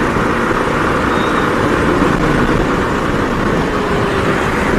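Steady wind rush over the microphone mixed with the motorcycle's engine and tyre noise while riding at a constant speed of about 50 km/h.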